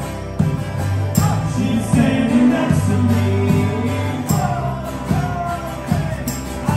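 A small band playing a song live: male voices singing over strummed acoustic guitar, electric guitar and a steady kick-drum beat.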